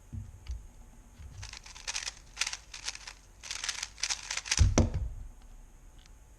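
GAN 11 M Pro magnetic 3x3 speedcube being turned very fast, a dense run of plastic clicking and clacking turns lasting about three seconds, ending in a heavy low thump.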